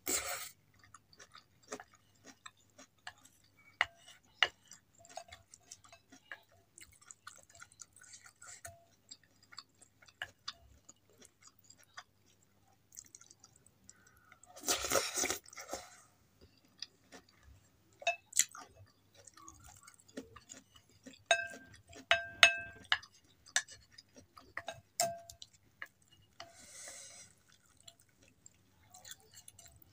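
Close-miked chewing and slurping of soupy instant noodles, with a longer slurp about halfway through. A few sharp clinks with a brief ring, as the wooden spoon and fork knock against the glass bowl, come a little after two-thirds of the way in.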